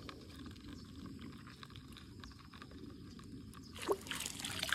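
Faint water-side noise, then near the end splashing and swishing as a landing net is swept through shallow pond water.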